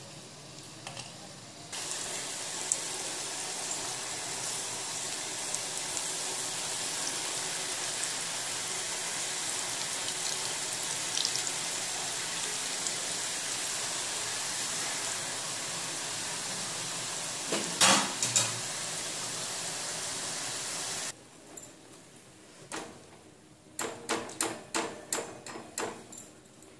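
Urad dal imarti deep-frying in hot oil in an iron kadhai: a steady sizzle of bubbling oil, with a couple of sharp knocks about 18 seconds in. The sizzle cuts off abruptly, and near the end a metal slotted spoon clinks several times against a steel pot of sugar syrup.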